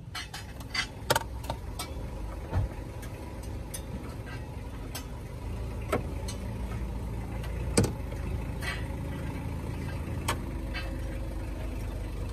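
Scattered sharp clicks and knocks as a new air-conditioning hose with metal fittings is handled and fed into the van's engine bay, the loudest about a second in and near eight seconds. Under them runs a steady low engine hum.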